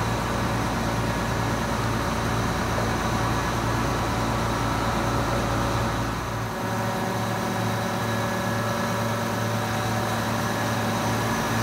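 John Deere 7720 combine's six-cylinder diesel engine running steadily, a low even hum. A little past halfway the deepest part of the rumble drops away.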